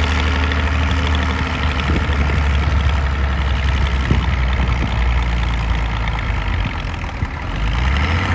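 Case 970 farm tractor engine running hard under heavy load while pulling a sled, labouring as it struggles a bit with the weight. The engine sound dips briefly near the end, then picks back up.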